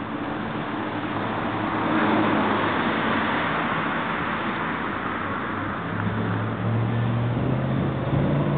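Street traffic: a passing vehicle swells and fades, then a vehicle engine runs with a steady low hum from about six seconds in.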